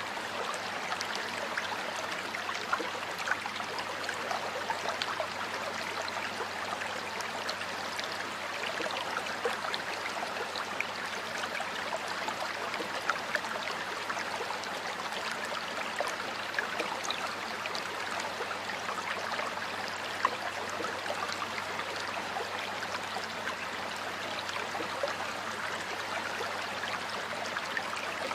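A stream of water flowing steadily, burbling and splashing over rocks, with many small droplet clicks.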